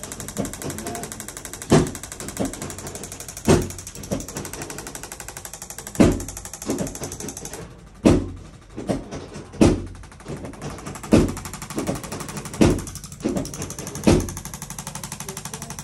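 Chiropractic treatment thuds: about ten sharp thuds at uneven intervals, one every second or two, over a steady faint buzzing hum.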